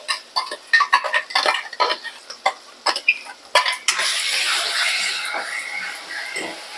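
A metal spoon clinks and scrapes repeatedly against steel cookware, then about four seconds in a loud steady sizzle starts as ground ginger-garlic-coconut masala paste fries in hot ghee, slowly fading.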